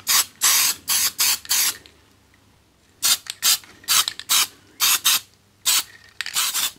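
Aerosol spray can of etch primer being sprayed onto aluminium in a series of short hissing bursts, with a pause of about a second partway through.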